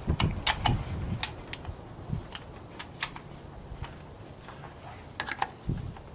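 Sharp, irregular metallic clicks of .308 cartridges being handled and pressed into the rifle's four-round magazine.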